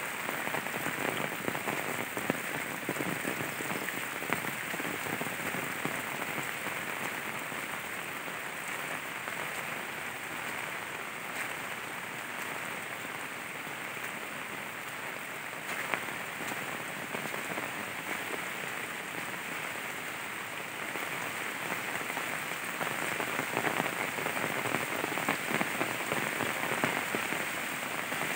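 Steady rain falling on leaves and a wet path, growing a little louder near the end.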